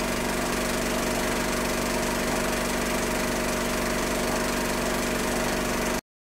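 Film projector running, a steady mechanical whirr with a fast clatter, cutting off suddenly near the end.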